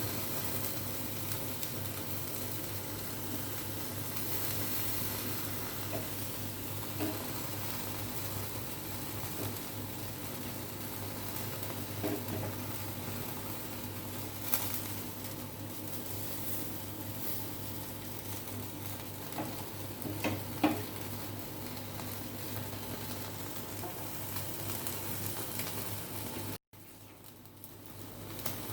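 Marinated chicken pieces sizzling steadily in a hot pan over a gas flame, with a few light knocks. The sizzle cuts off abruptly near the end.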